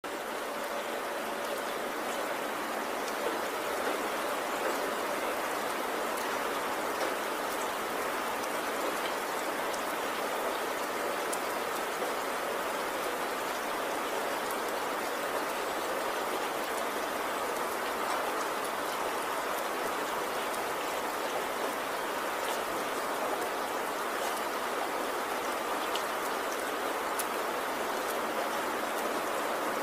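Steady rain: an even hiss with scattered faint drop ticks, running unchanged.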